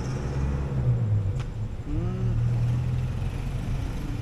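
Steady low engine-like rumble, with a single sharp click about a second and a half in.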